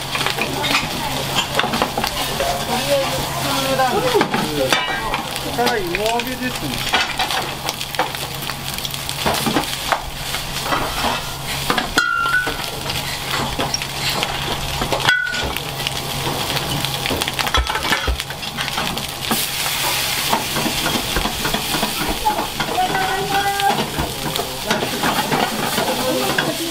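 Food frying and sizzling in frying pans on a restaurant range, with utensils stirring and scraping and pans clattering in short knocks. A steady low hum runs underneath.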